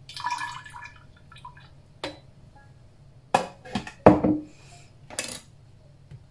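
Orange juice poured from a stainless steel hand citrus juicer into a glass jar, with metal clinking against the glass. Then a few sharp clatters and knocks as the juicer and jar are set down on the counter.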